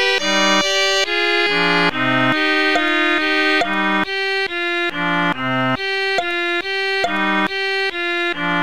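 Instrumental background music: a run of held chords that change about every half second, each one starting sharply.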